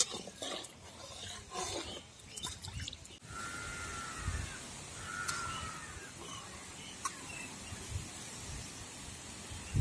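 A metal spatula clicking and scraping in a steel kadai of dal frying in oil; then, after a sudden change about three seconds in, open-air ambience with a steady faint hiss and a bird giving two short arched calls. A loud thump comes at the very end.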